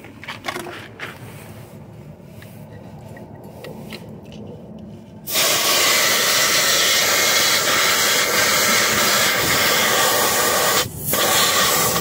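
Air hissing loudly out of a truck tire's valve stem as a dial tire-pressure gauge's chuck is pressed onto it, starting suddenly about five seconds in and breaking off for a moment near the end. Before it, light clicks of the gauge being handled.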